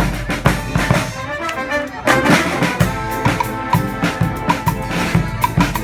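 Street marching band of brass and drums playing. The drumming thins out about a second in, and the whole band comes back in together at about two seconds with held horn chords over the drums.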